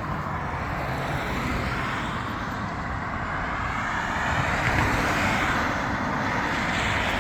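Road traffic passing: a steady rush of car tyre and engine noise that swells about four to five seconds in as vehicles go by.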